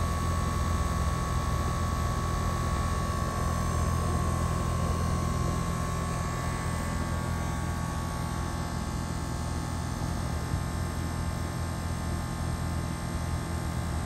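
Bryant Legacy Line 116B single-stage air conditioner condenser running: the steady airy whoosh of its top fan over a constant low hum. A thin high tone fades out about halfway through.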